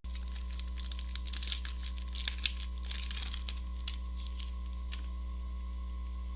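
Foil Pokémon card booster pack crinkling and tearing as it is opened, a quick run of crackles that dies away after about five seconds. A steady electrical hum runs underneath.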